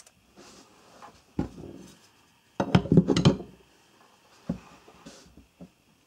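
A LionSteel M7 fixed-blade knife handled on a wooden tabletop and set into a clear plastic knife stand: a run of knocks and clatters of metal and plastic on wood, loudest in a quick cluster about halfway, with single knocks before and after.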